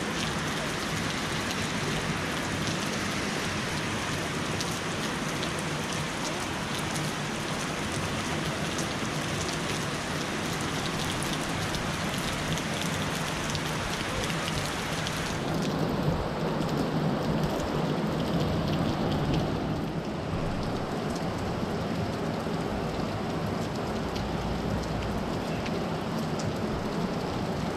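Heavy rain falling steadily on trees and foliage, a continuous hiss; the high part of the hiss drops away a little past halfway.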